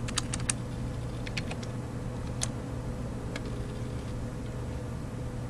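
Scattered clicks of a computer keyboard and mouse as a scale value is entered, a quick cluster in the first half-second, then single clicks up to about three and a half seconds in, over a steady low hum.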